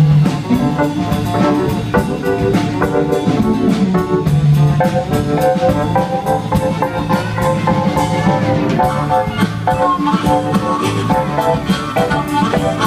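Live band playing an instrumental passage: a drum kit keeping a steady beat under electric bass, guitars and pedal steel guitar.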